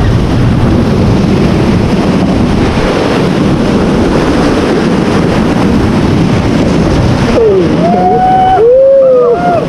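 Whitewater rushing and splashing loudly around a raft in a river rapid, with wind buffeting the microphone. Near the end, people whoop and shout.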